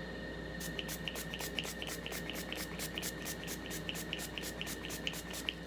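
Pump-mist bottle of Maybelline Master Fix setting spray being spritzed in rapid succession: a quick run of short hissing sprays, about five a second, starting about half a second in and stopping shortly before the end.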